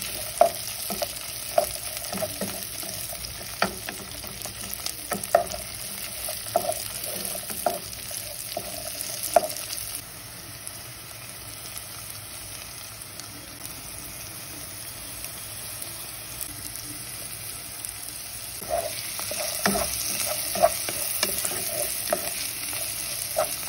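Onions, chickpeas and garlic sizzling in oil in a pot while a wooden spoon stirs them, knocking against the pot now and then. The knocking stops for several seconds in the middle and starts again near the end, with the steady sizzle running under it.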